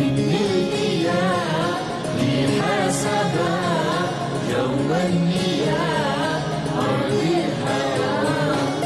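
Background music: a solo voice singing a wavering, heavily ornamented melody without clear words, in the style of an Urdu naat (devotional song).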